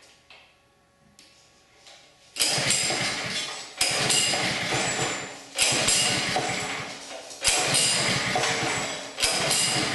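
Pull-start recoil rope on a Honda GX200 pressure-washer engine yanked about five times in a row, starting a couple of seconds in. Each pull is a sudden loud rasp that fades, and the engine does not catch. The engine is being cranked with its sensor wire disconnected to bypass the sensor.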